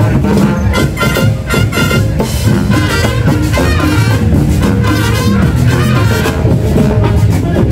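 Marching band playing live: brass instruments carrying the tune over drums beating a steady rhythm.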